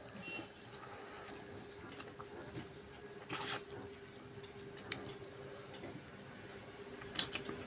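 A child slurping instant ramen noodles and chewing, with one loud, hissing slurp about three and a half seconds in.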